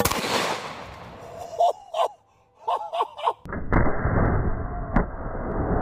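A single shot from a suppressed four-bore rifle, a sharp report that rings and dies away over about a second. From about three and a half seconds in, a loud steady low rumbling noise takes over.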